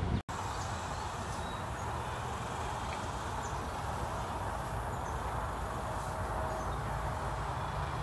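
Steady outdoor background noise, a low rumble with a hiss above it, with a few faint short high chirps from distant birds scattered through it. The sound drops out for an instant just after the start.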